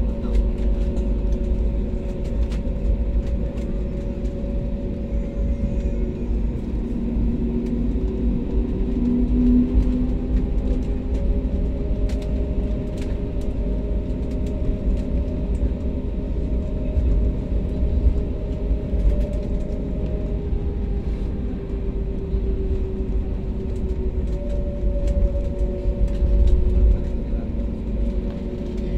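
Jet airliner taxiing, heard inside the cabin: a steady low rumble from the wheels and airframe, with the engines' hum at taxi power.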